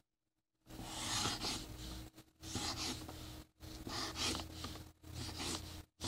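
Sharpie marker tip dragged across paper in four long strokes of about a second each, with short pauses between them.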